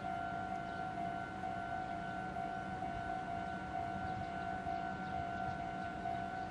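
Japanese railway level-crossing warning bell ringing steadily, its electronic two-tone alarm sounding without a break: the crossing is closed, waiting for a train.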